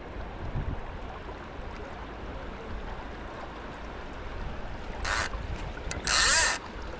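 Steady rush of river water with wind on the microphone. Two short, loud hissing rushes come about five and six seconds in, the second one longer and louder.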